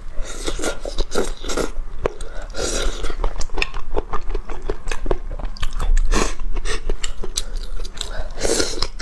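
Close-miked slurping of noodles from a bowl of soup, with chewing in between: a run of short wet mouth sounds and several longer slurps.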